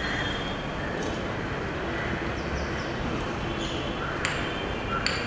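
Steady background noise of the venue with no speech, broken near the end by a few sharp clinks.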